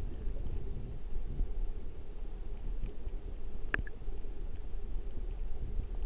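Muffled, low rumble of flowing stream water heard through a submerged camera, with one sharp click a little under four seconds in.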